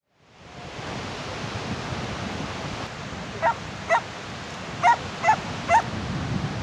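A dog barking five short, sharp barks, in two groups, over a steady rushing background noise that fades in at the start.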